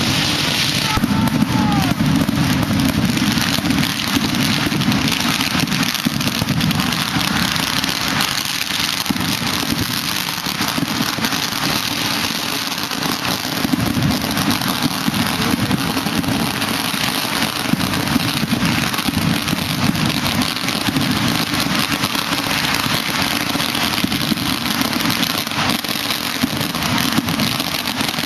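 Firecrackers crackling densely and without a break, a continuous rapid rattle of small bangs.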